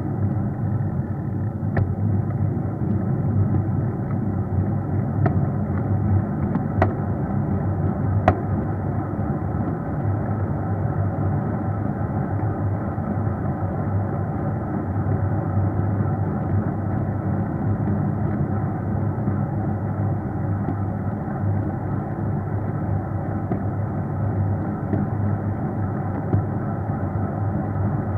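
Steady rumble of riding along an asphalt road, picked up by a camera mounted on the moving vehicle: road and wind noise with an even low hum, and a few sharp clicks or knocks in the first third.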